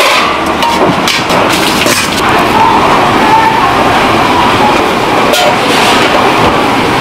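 Stainless steel bowls clinking and knocking against each other as they are handled and stacked, over a steady busy market din with faint voices.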